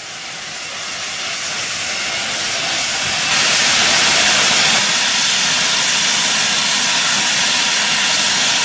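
Steam hissing steadily from GWR Modified Hall steam locomotive No. 6960 standing at the platform. It grows louder over the first three seconds, then holds steady.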